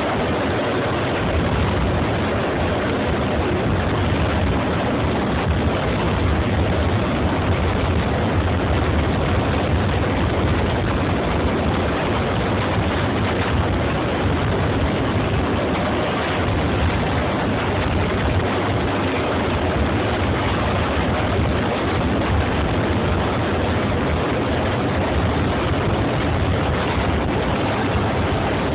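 Helicopter hovering close overhead with a slung load: a steady, loud rotor and engine noise with rushing rotor wash and no pauses.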